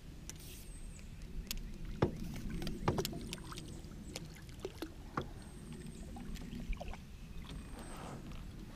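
A hooked catfish splashing at the surface beside a small boat, with water sloshing against the hull. A few sharp clicks and knocks come through, the clearest about two, three and five seconds in.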